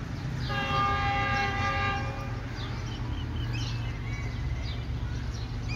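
Locomotive horn of a Pakistan Railways train sounding one steady, held blast of about two seconds, starting about half a second in. Birds chirp and a low rumble runs beneath.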